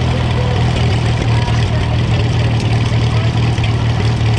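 Oliver 66 tractor's four-cylinder engine running steadily with an even low pulse, heard close to its exhaust stack as the tractor moves slowly.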